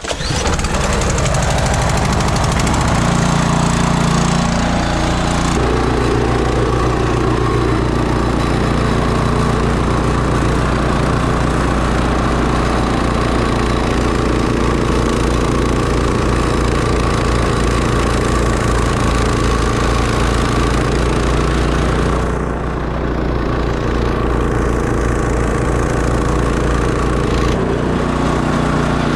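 Can-Am Defender side-by-side's engine running steadily, loud and even, briefly softer about two-thirds of the way through.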